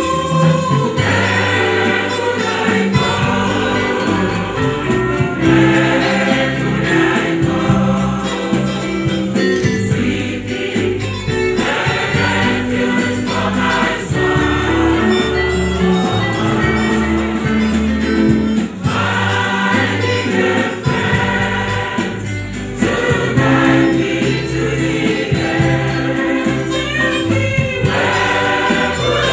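Church choir singing a gospel hymn together, holding long notes through each phrase with short breaks between phrases.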